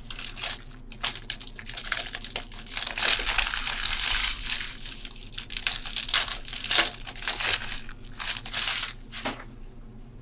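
Plastic wrapping of sealed trading-card packaging crinkling and tearing as it is opened by hand: many quick crackles that die down near the end.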